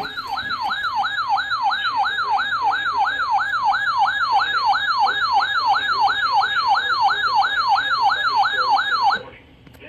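Weather radio alert siren: a loud electronic tone warbling rapidly up and down, about three sweeps a second. It cuts off abruptly about nine seconds in, signalling that a warning broadcast follows.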